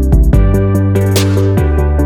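Background music: an instrumental electronic track with a steady beat and sustained notes.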